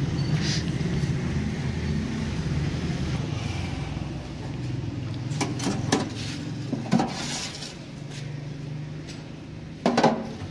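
A road vehicle's engine runs with a steady low hum over street noise. A few sharp clinks and knocks, like steel utensils at a food counter, come in the second half, and there is a brief louder knock near the end.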